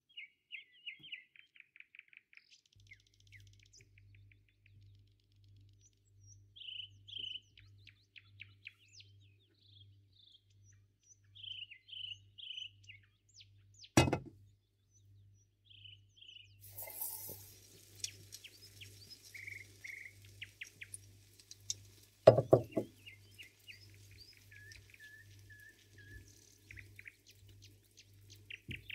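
Small birds chirping throughout, over a low pulsing hum that comes in a few seconds in. About halfway there is a sharp knock. Soon after, batter starts sizzling steadily in hot oil in a non-stick frying pan, with a loud thump a few seconds later.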